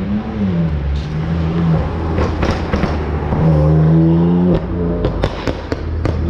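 BMW M4's twin-turbo straight-six revving hard as it drives past, its pitch climbing, then cutting off sharply on the lift, followed by a quick string of sharp exhaust pops and cracks.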